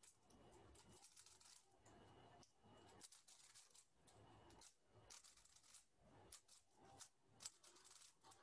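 3x3 Rubik's cube being turned fast by hand during a speed solve: faint plastic clicks and rattles in quick, irregular flurries.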